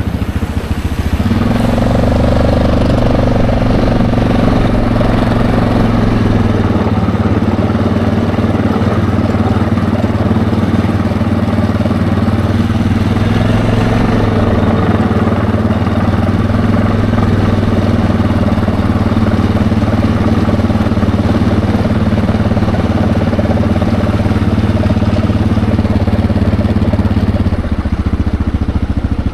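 ATV engine running under way. Its note rises about a second in, holds steady for most of the ride, then drops near the end as the machine slows.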